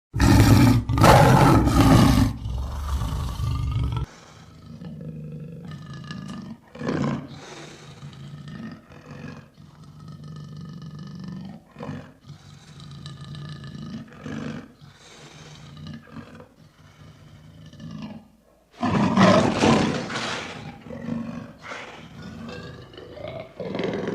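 Lion roaring: a loud roar that cuts off abruptly about four seconds in, then a run of quieter, shorter calls, and a second loud roar a few seconds before the end.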